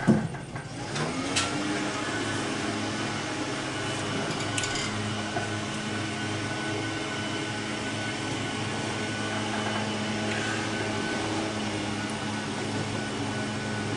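A small motor humming steadily after rising to speed about a second in, with a few light metallic clicks from parts being handled.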